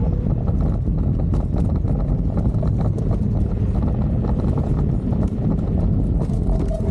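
Electric scooter rolling over a tiled pavement: a steady low rumble with rapid, irregular clicks and rattles as the small wheels cross the tile joints.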